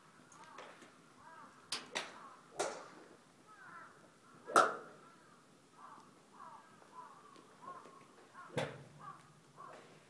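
Golf clubs striking balls at a driving range: several sharp cracks, the loudest about four and a half seconds in and another near the end. Birds call repeatedly in the background.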